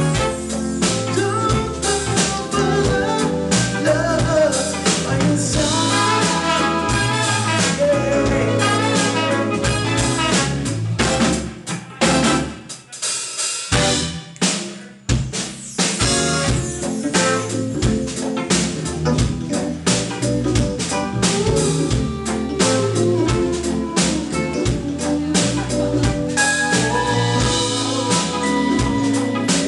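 Live band playing a song on a club stage, led by a drum kit. About eleven seconds in, the band drops out to scattered drum hits for a few seconds, then the full band comes back in.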